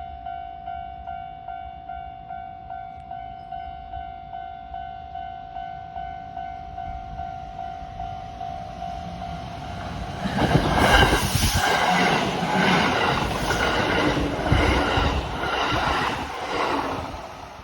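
Japanese level-crossing alarm ringing its steady electronic tone about twice a second, then a Kintetsu electric train passing close by, much louder, with its wheels clattering rhythmically over the rail joints until near the end.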